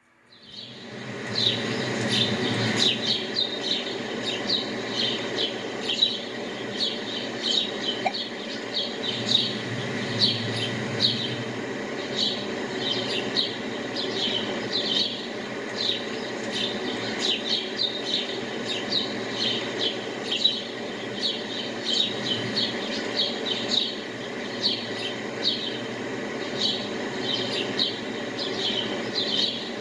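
Several small birds chirping and twittering, many short high chirps a second over a steady low background hum. The sound fades in over the first second.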